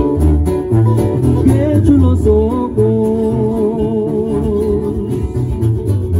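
A live acoustic band plays: strummed and picked acoustic guitars over a sousaphone bass line pulsing on the beat. A male voice comes in about two seconds in and holds a long, wavering sung note.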